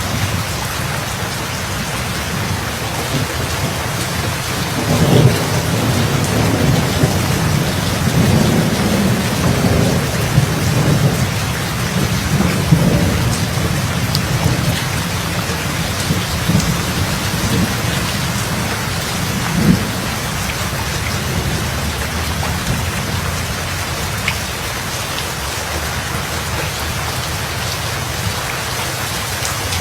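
Steady heavy rain pouring, with thunder rumbling low from about five seconds in, building for several seconds, and another short thunderclap a little past the middle.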